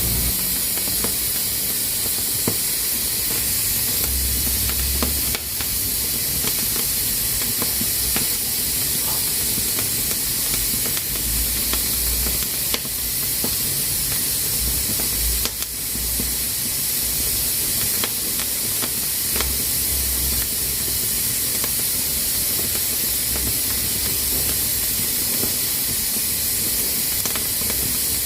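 Pressure cooker hissing steadily as steam escapes through its valve, with a few faint clicks scattered through it.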